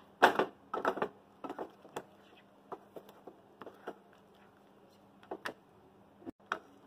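Thick tomato-and-spice masala frying in oil in a kadhai on low flame: scattered soft pops and clicks at irregular intervals, the strongest just after the start, over a faint steady hum.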